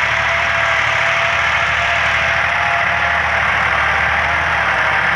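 Massey Ferguson 260 turbo tractor's diesel engine running steadily under load while pulling a tillage implement through the soil.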